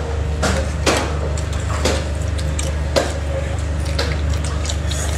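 Close-up eating sounds: a handful of short, sharp chews and slurps of noodle soup, spaced about a second apart, over a steady low hum.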